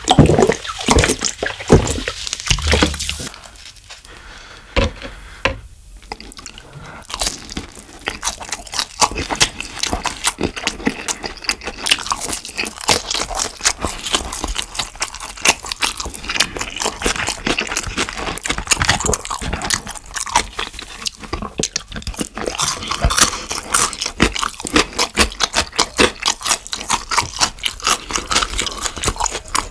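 Close-miked eating sounds: a few loud gulps from a plastic water bottle at first, then, after a brief lull, dense, rapid crunching and chewing of deep-fried tangsuyuk pork and fried dumplings.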